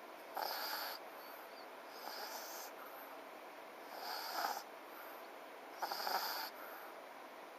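French bulldog snoring in its sleep: four snores, one about every two seconds, the second fainter than the rest.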